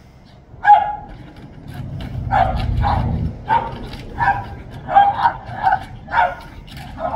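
Dog barking repeatedly at a neighbour's dog across a wooden fence, about ten short, sharp barks, some coming in quick pairs. A low rumble sounds under the barks about two seconds in.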